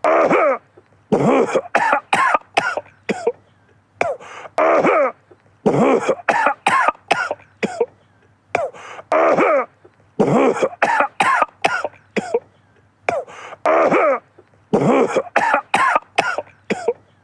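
A man coughing in repeated fits. Each round holds two longer coughs followed by three or four short, quick ones, and the same pattern comes back about every four and a half seconds.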